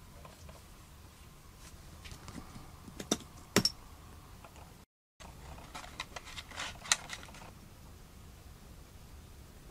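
Hand-work noises on a work mat: light scraping and a couple of sharp clicks from a thin carbon rod section being sanded by hand, then a run of crackling as a plastic blister pack of glue is handled.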